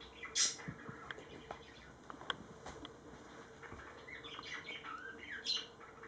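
Pet budgerigars chirping in their cage: a string of short, high chirps, loudest about half a second in and again near the end, packed closer together in the last two seconds.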